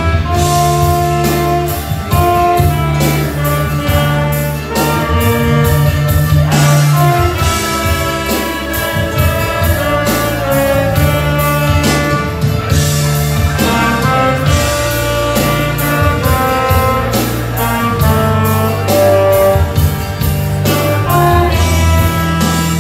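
Alto saxophone playing a slow hymn melody over a recorded backing track with bass notes and a steady beat.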